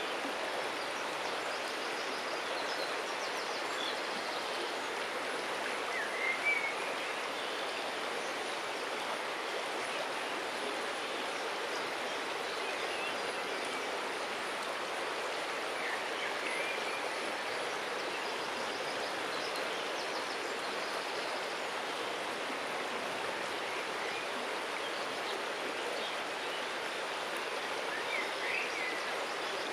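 River water running steadily around a stone, with a few short bird chirps about six seconds in, near the middle and near the end.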